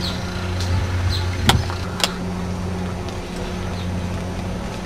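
A steady low engine hum, with two sharp clicks about half a second apart roughly a second and a half in.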